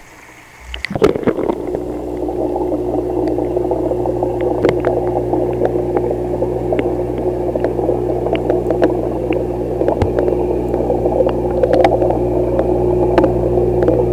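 Steady mechanical hum of aquarium equipment (wavemaker powerhead and filter pump) heard underwater, with scattered small clicks and ticks. It comes in suddenly about a second in after a few knocks, and holds steady after that.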